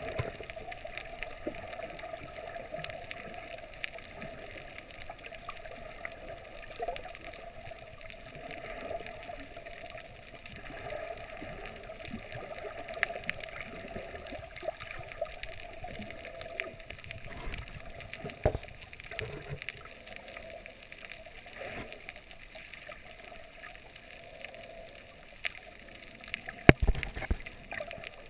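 Muffled underwater sound picked up by a camera below the surface: a steady wash of water noise with scattered clicks and knocks, the loudest cluster of knocks near the end.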